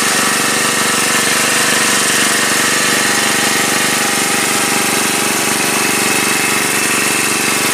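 A small engine runs steadily at a constant speed, over an even hiss of rain.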